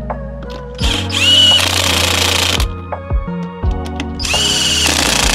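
Impact wrench fitted with a 100-pound torque stick running lug nuts down, in two runs of about a second and a half each, each spinning up to a high whine.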